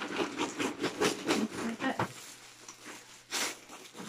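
Plastic packaging rustling and crinkling as a poly mailer bag and a clear plastic garment bag are handled, in irregular bursts, busier for the first two seconds and sparser after.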